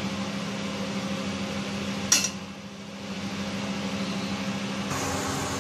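Steady low hum of a running kitchen machine, with one sharp click about two seconds in.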